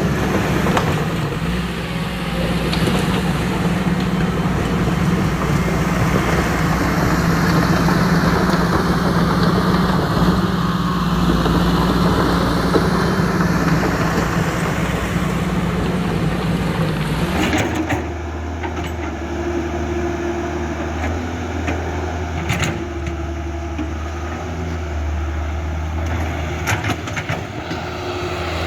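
Steady machine motor noise with a low hum. About two-thirds through it changes abruptly to a deeper, steady hum with a few sharp clicks.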